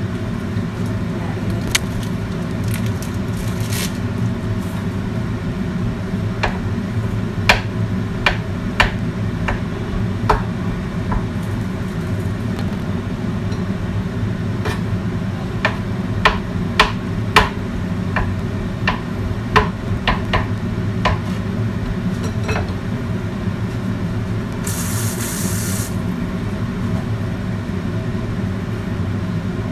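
Kitchen range hood fan running with a steady low hum, over scattered clicks and knocks of a knife on a wooden cutting board. A short hiss comes near the end.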